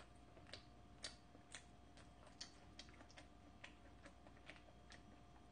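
Faint, soft mouth clicks of someone chewing a piece of tender chicken tenderloin, about two a second, over near-silent room tone.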